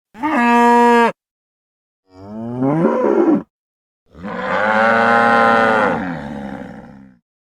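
Hypacrosaurus sound effect, a crested duck-billed dinosaur's calls: three separate deep, lowing calls. The first is short, the second rises in pitch, and the third is the longest, trailing off at the end.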